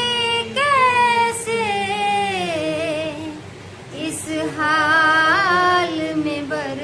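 A woman singing a slow Hindi song about separation, unaccompanied, holding long notes that waver and slide between pitches, with a short break about three and a half seconds in.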